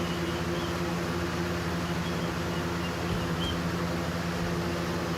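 Window fan running steadily, a constant hum over a whooshing air noise.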